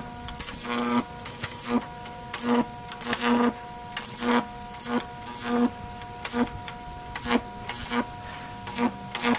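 High voltage arcs from a pencil electrode fed by a microwave oven transformer (about 2 kV) striking a phone. They crackle and buzz in short bursts, a little more than one a second, over a steady electrical hum.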